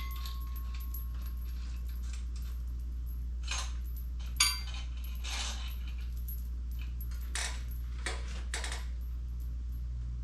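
Small steel parts and hardware clinking as they are handled and fitted during assembly of a transmission jack: a handful of separate short metallic clinks, the sharpest about four and a half seconds in, over a steady low hum.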